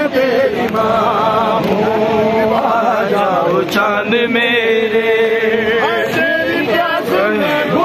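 A crowd of men chanting a noha, a Shia mourning lament, together. Many overlapping voices sing loudly without pause.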